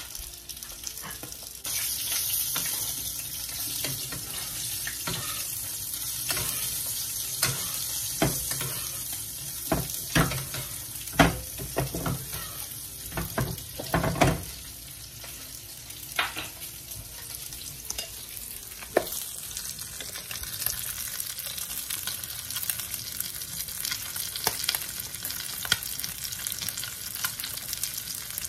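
Salmon fillets sizzling in butter in a nonstick frying pan, a steady high hiss that gets louder about two seconds in. A scattering of sharp clicks and knocks comes in the middle stretch.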